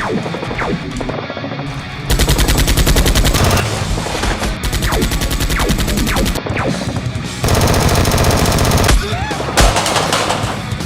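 Three bursts of rapid automatic gunfire, each one to two seconds long, over background music.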